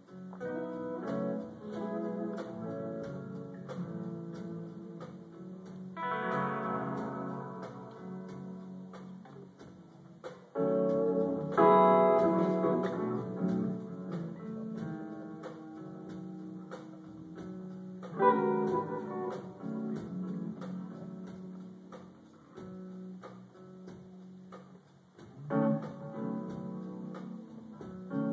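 Electric guitar played live: a picked single-note melody over a held low note, with fuller chords struck about every six seconds, the loudest about 11 seconds in.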